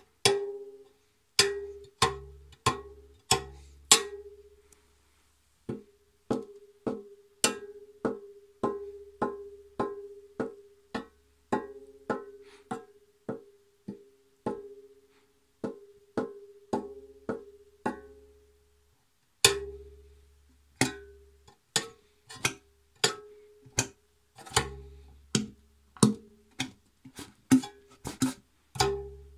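Homemade marimbula (bass thumb piano) prototype of scrap wood and scrap metal, its metal tongues plucked again and again, mostly on one mid note with a few lower notes mixed in. Each note is short and dies away quickly, with two brief pauses.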